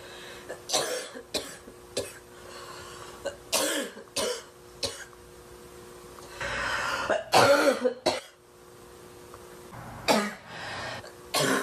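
A woman's barking cough in repeated fits: single coughs and short runs of two or three, with a longer, louder run about seven seconds in.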